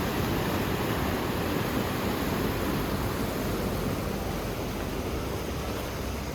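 Steady rushing roar of a waterfall's falling water, easing slightly near the end.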